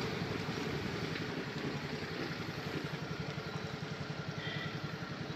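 Motorcycle engine idling while stationary, with a steady, even pulsing rhythm.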